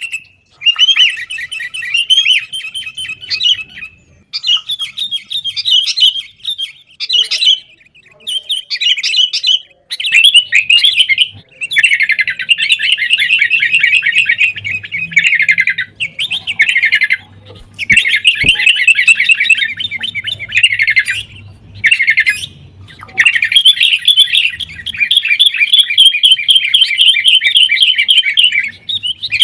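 Sooty-headed bulbuls calling noisily in rapid chattering bursts of one to several seconds with brief gaps, the agitated, fighting calls used as a lure to set caged bulbuls singing.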